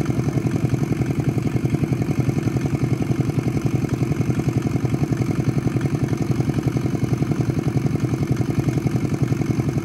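Small boat engine running steadily at a low, even speed, with a fast regular throb.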